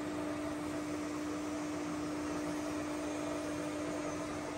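Steady mechanical hum with one clear, unchanging tone over a faint even noise, as from an electric motor or fan running.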